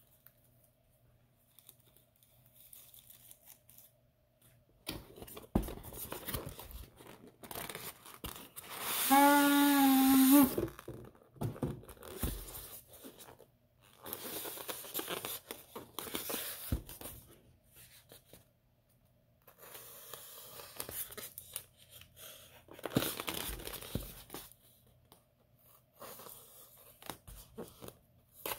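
Hands unpacking a styrofoam shipping container from a cardboard box: rustling, scraping and packing tape tearing in bouts from about five seconds in, with one loud, brief squeak about nine seconds in.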